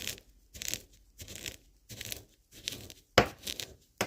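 Pestle grinding roasted sesame seeds in a mortar: repeated gritty crushing strokes, about one and a half a second, with a sharper knock about three seconds in.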